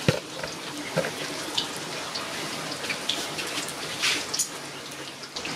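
Crumbed barramundi pieces sizzling and crackling in hot oil in a wok, with a couple of sharp knocks near the start.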